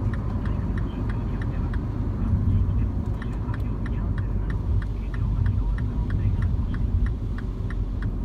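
Inside a MINI on the move: steady low road and engine rumble, with the turn-signal indicator ticking evenly, about three ticks a second, starting about half a second in.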